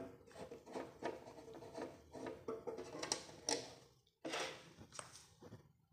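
A screwdriver turning and scraping in the screws of a TOA PA amplifier's metal case, in short irregular scratching strokes, with a pause about four seconds in.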